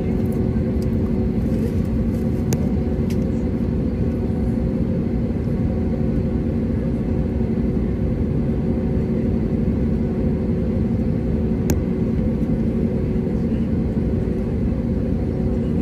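Steady engine and airflow noise of an Airbus A320neo heard inside the passenger cabin, a deep rush with a steady engine hum over it. A faint click comes twice.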